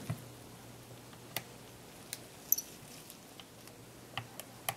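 Small screwdriver backing tiny screws out of a Canon EOS 60D's back cover: a handful of faint, scattered clicks and ticks of the tip and screws against the camera body.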